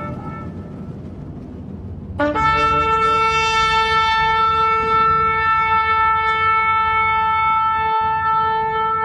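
A shofar (ram's horn) blowing one long, steady held note. It comes in about two seconds in, breaking up from a brief lower pitch into the sustained tone, after a moment of low background noise.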